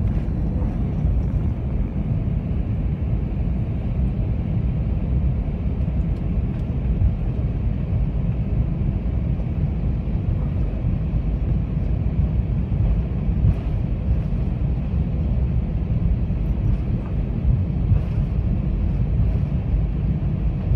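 Steady low rumble inside the cabin of an Airbus A318 taxiing on the ground, its CFM56 engines at low taxi power, with a few faint clicks.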